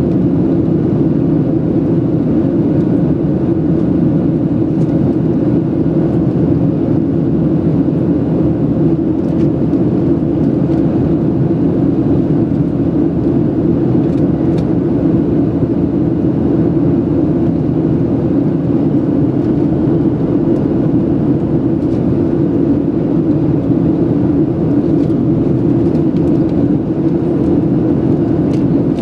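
Steady drone of a Boeing 737-700's CFM56-7B turbofan engines and rushing airflow, heard inside the cabin during the climb after takeoff. It is a low, even roar with a faint steady hum above it.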